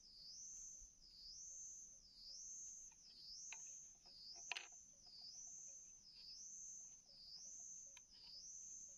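An insect calling in a steady cycle about once a second, a high tone that dips and rises again each time. A few light clicks and taps from bamboo being handled; the sharpest comes about halfway through.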